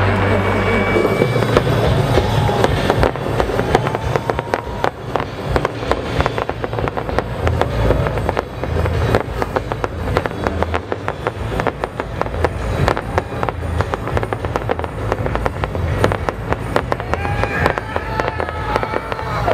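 Fireworks display going off in a dense barrage of rapid bangs and crackle, many a second, with music playing underneath.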